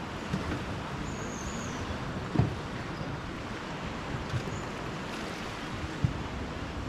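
Small waves washing on a sandy shore in a steady wash, with a few short low thumps, the strongest about two and a half seconds in and another near the end. A brief high chirp sounds about a second in.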